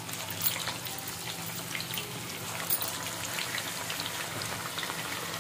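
Battered chicken pieces on skewers deep-frying in hot oil, a steady sizzle with scattered crackles and pops.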